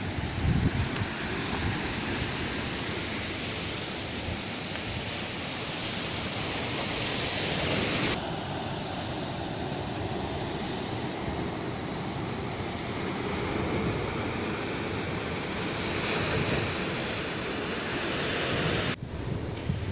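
Steady wash of ocean surf breaking against the rocky shore below, mixed with wind gusting on the microphone. The sound shifts abruptly about eight seconds in and again near the end.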